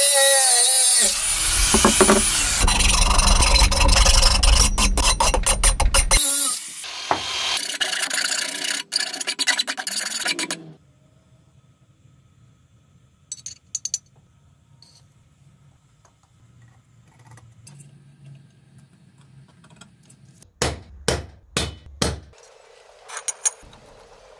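Angle grinder with a cut-off disc cutting through a steel rectangular tube, a loud grinding rasp that pauses briefly and then stops about ten seconds in. After that come faint small clicks of hand work and a few sharp knocks near the end.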